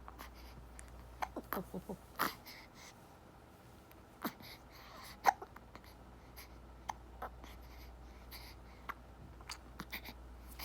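Baby hiccuping after a feed: short, sharp hiccups every couple of seconds, the loudest about five seconds in.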